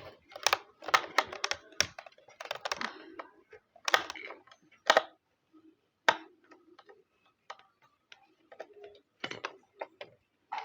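Irregular clicks and clatter of a screwdriver working on small plastic fan parts, as the screws holding the switch board inside a rechargeable table fan are taken out.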